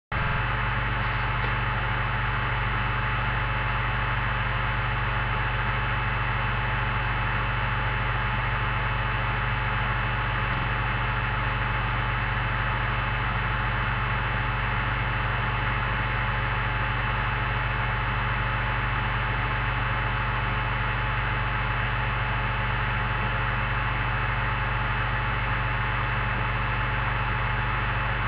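Steady electrical mains hum with a constant hiss, unchanging throughout.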